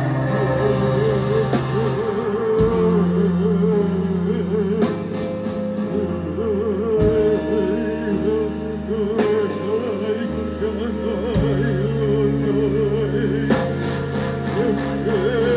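Live rock band playing in a small club: long held bass notes that shift every second or two under a wavering, warbling high line, with cymbal crashes cutting in at intervals.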